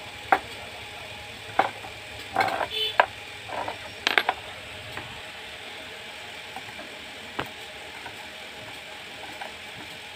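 Small metal clicks and clinks of a steel screw being worked through the hole of a perforated galvanized steel strap by hand. A quick scatter of clicks comes over the first few seconds, then one more click about seven seconds in.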